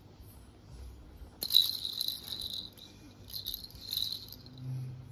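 A baby's toy jingling and rattling in two short bouts, about a second and a half in and again around three and a half seconds. A short low hum follows near the end.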